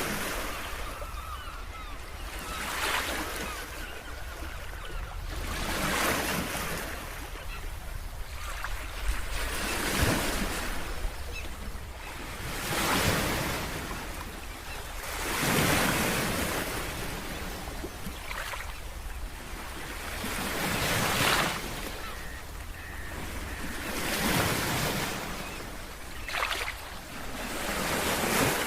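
Sea waves washing onto the shore, one surge after another about every two to three seconds, with wind rumbling on the microphone.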